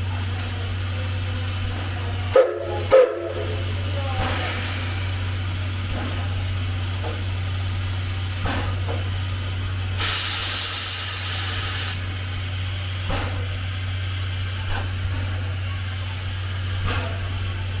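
C11 steam tank locomotive moving slowly, with faint knocks every second or two over a steady low hum, and steam hissing from its cylinder drain cocks in a loud burst about ten seconds in. Two short loud sounds come about two and a half and three seconds in.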